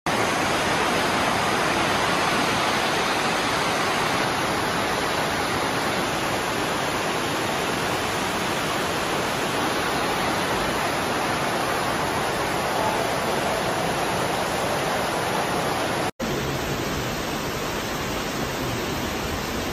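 Flash floodwater rushing and churning through a flooded station entrance: a steady, heavy rush of water. It breaks off briefly about three-quarters of the way through, and a similar, slightly quieter wash of water follows.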